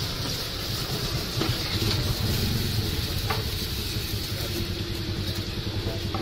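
Street traffic: a motor vehicle engine running steadily with a low, pulsing rumble under an even hiss, with a couple of faint clicks.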